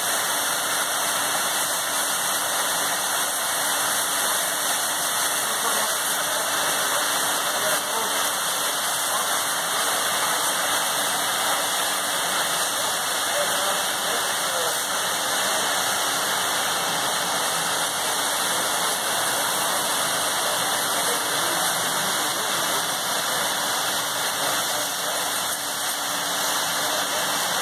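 Air casters hissing steadily as compressed air escapes from under their pads, floating a large cabin cruiser on a film of air across a concrete floor.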